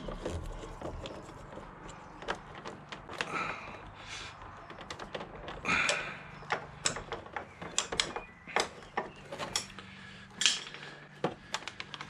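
Hands working wiring cables and hoses into place behind a motorcycle's dash: scattered light clicks and taps with brief rustling, coming more often in the second half.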